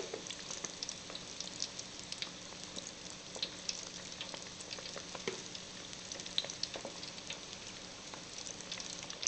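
Chicken pieces deep-frying in hot oil in a fryer basket: a steady sizzle with scattered crackles and pops.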